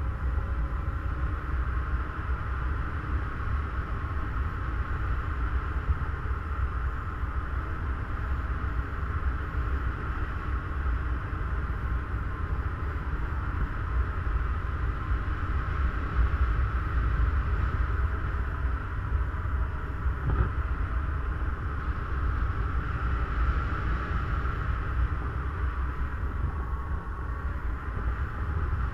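Airflow buffeting a paraglider's camera microphone in flight: a steady low rumble under an even, higher rushing hiss, with no distinct events.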